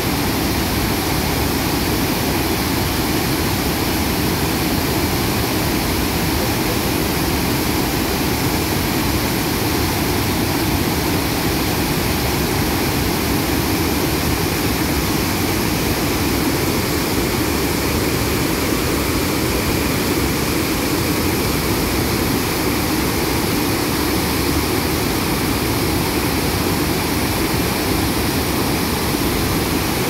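Wide waterfall in flood, muddy floodwater pouring over rock ledges: a loud, steady rushing of water.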